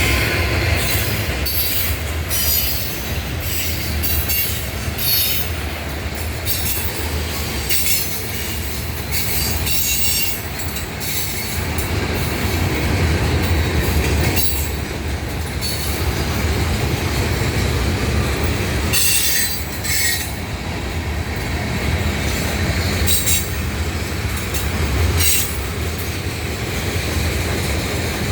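Norfolk Southern freight train rolling past: a steady low rumble, wheels clacking over rail joints and short bursts of high-pitched wheel squeal throughout, strongest about two-thirds of the way through.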